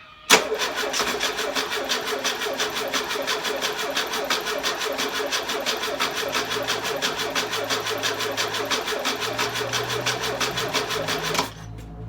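Electric starter cranking an engine that has sat unused for six months, a fast even rhythm that begins with a sharp click and cuts off suddenly near the end: a hard start, the engine not yet running on its own.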